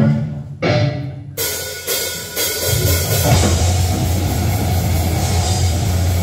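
Heavy metal band starting a song live: a few sharp drum hits, then crashing cymbals, and about three seconds in the bass and guitars come in with the drums in a full, heavy wall of sound.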